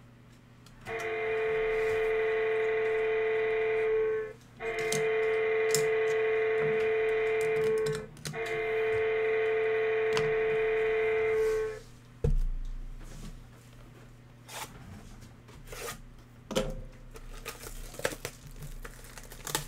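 An electronic horn sounds three long, steady blasts of about three seconds each, separated by short gaps. Light clicking and crinkling of plastic wrap follow as a sealed trading-card box is handled.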